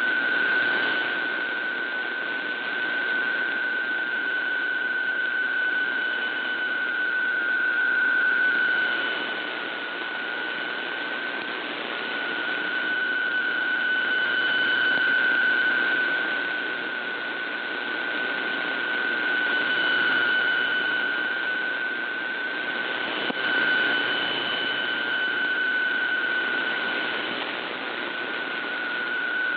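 PSK125R digital text signal on a shortwave radio: a steady mid-pitched data tone over static hiss, fading slowly up and down in strength. The reception is marginal.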